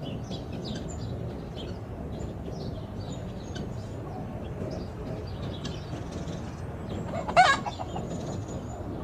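Chickens at a farm: one short, loud squawk from a chicken about seven seconds in, over faint high chirps from small birds and a steady low background noise.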